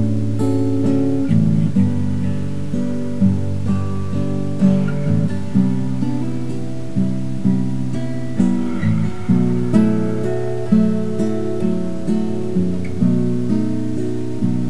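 Acoustic guitar playing an instrumental intro, chords strummed in a steady rhythm with an attack about once a second.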